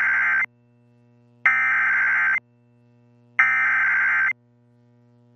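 Emergency Alert System SAME header: digital data bursts sent in a set of three. The tail of one burst ends about half a second in, then two more follow, each about a second long with a second's gap, and a faint steady hum lies beneath. The bursts are the coded header that carries the alert's event type, areas and times ahead of the spoken warning.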